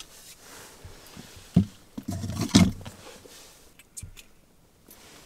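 Handling noise as a freshly caught perch is unhooked with forceps: a thud a bit over a second in, a louder stretch of rustling and knocking around two to three seconds in, and a few small sharp clicks about four seconds in.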